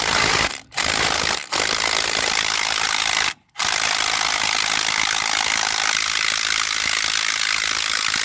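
Loud, steady, rapid mechanical rattling from shop machinery working on a hydraulic ram. It cuts out abruptly three times for a moment.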